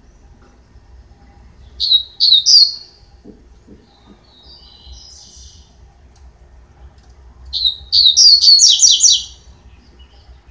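A caged papa-capim (Sporophila seedeater) sings two short, loud phrases of high whistled notes. The first, about two seconds in, is three swooping notes. The second, near the end, is a fast run of repeated notes. A softer warble comes between them.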